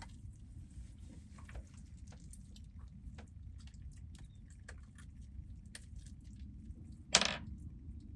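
Small clicks and taps of gear and a caught fish being handled on a boat, over a low steady rumble, with one louder brief rustle or slap about seven seconds in.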